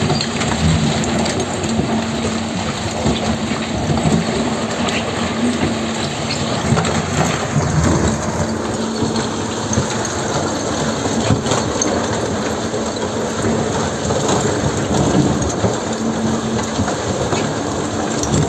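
Microtunneling machine's rotating cutter head grinding through rock as it breaks out of the face: a loud, continuous crunching rumble with a steady low hum underneath and scattered clicks of loose rock falling.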